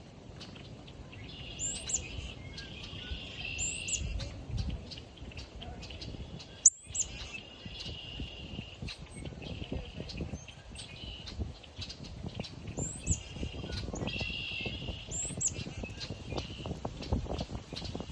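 Small birds chirping: short high chip notes every couple of seconds over a wavering background song, with wind rumbling on the microphone. A single sharp click sounds just before halfway through.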